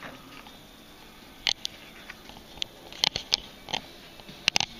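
Handling noise: scattered light clicks and taps from a hand-held camera and an air rifle being moved about, with a quick pair of sharper clicks near the end.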